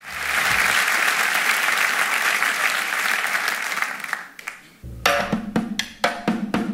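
Audience applauding, dying away about four seconds in. Then drum kit hits start, a quick run of bass drum and snare strokes.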